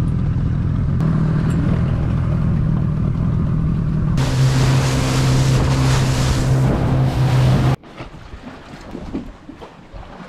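Inflatable dinghy's outboard motor running at speed, with wind on the microphone. About four seconds in, the hiss of spray and rushing water joins it. Near eight seconds the sound drops off suddenly to quieter wind rush.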